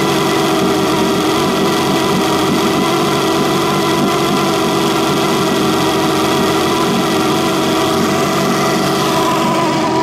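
1976 Mercury inline-six two-stroke outboard engine running steadily.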